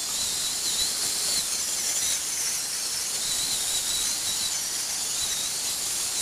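A steady high-pitched hiss with faint wavering whines above it, running on without a break.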